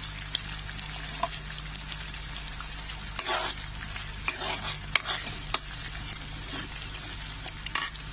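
Metal spoon stirring thick curry gravy in a kadhai, scraping and clicking against the pan several times, loudest about three seconds in and near the end, over a steady sizzle of the gravy cooking with freshly added curry leaves.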